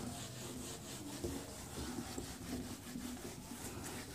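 Whiteboard eraser rubbing across a whiteboard in quick, repeated back-and-forth strokes, wiping off marker writing.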